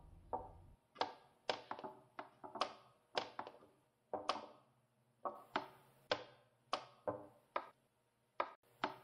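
Chess pieces set down on the board and a wooden chess clock's buttons pressed in quick succession: a string of sharp wooden clacks, often in pairs, as moves are played one after another.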